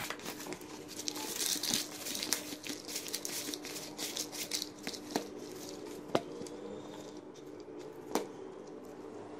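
Hands tearing and crumbling a thick ghee-cooked roti with brown sugar in a bowl: soft rustling and crackling with many small clicks, and a few sharper taps against the bowl about halfway through and near the end.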